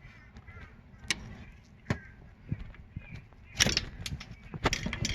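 Scattered clicks and light knocks of hand tools against a rear brake caliper as its guide bolt caps are pried off, coming in quick clusters in the second half.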